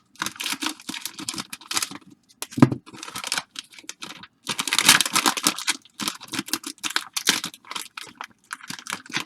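Plastic wrapping of a rack pack of baseball cards being torn open and crinkled by hand: irregular crackling and tearing, with a dense burst about halfway through.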